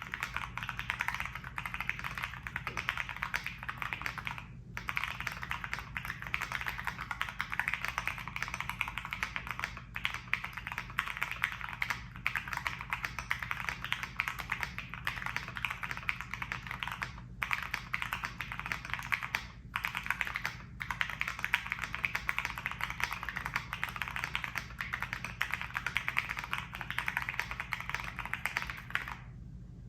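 Continuous fast typing on a Monsgeek M1 mechanical keyboard with AKKO Jelly Black linear switches and PBT keycaps, built with an FR4 plate and no foam, giving a stream of crisp keystroke clicks. A few short pauses break it, and it stops shortly before the end.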